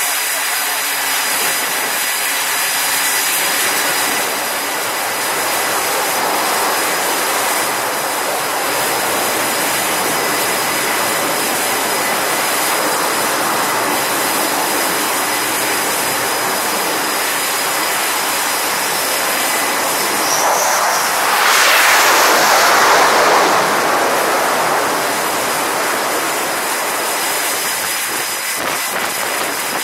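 Jet engine noise on an aircraft carrier's flight deck, a steady loud rush that swells for about three seconds past the middle before settling back.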